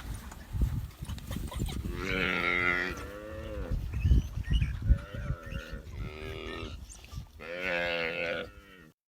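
African buffalo bawling in distress, with about four drawn-out moo-like calls that each rise and fall in pitch, as wild dogs attack a calf. The sound cuts off abruptly near the end.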